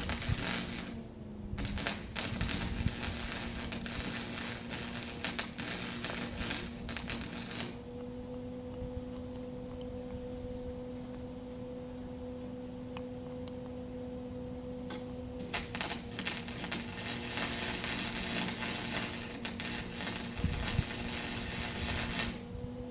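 Electric arc welding on steel cattle panels: a crackling, sizzling arc in two long runs of several seconds each, with a short burst at the start. A steady low hum runs underneath throughout.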